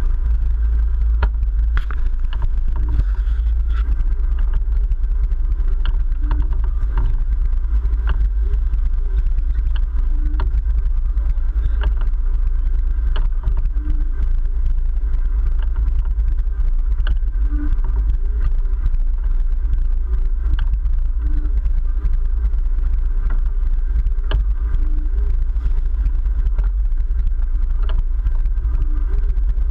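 Sportfishing boat's inboard engines running steadily at trolling speed, a deep, even drone, with scattered light clicks.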